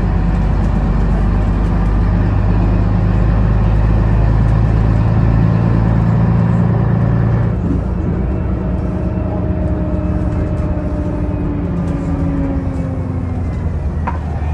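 1982 Scania BR112DH double-decker bus's diesel engine running under power, heard from inside the bus. About halfway through, the engine note drops away and a whine slowly falls in pitch. There is a single click near the end.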